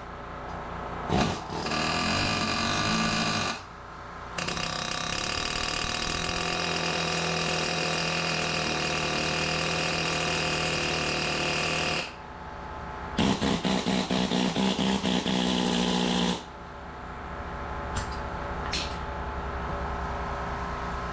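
An electric power tool with a drill-like motor, run in three bursts: a short one, a long steady run of about eight seconds, and one near the end that is switched on and off rapidly many times. A lower, quieter hum fills the pauses.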